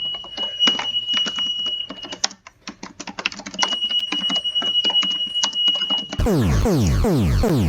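Emergency alert alarm sound: a steady high tone held about two seconds, broken off, then held again, with rapid clicking over it. About six seconds in it switches abruptly to a loud, repeating falling sweep, about three a second.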